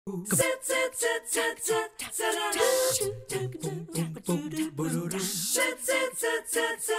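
TV show's opening jingle sung a cappella: voices in short, rhythmic sung notes, with breathy hissing sweeps about two and a half and five seconds in.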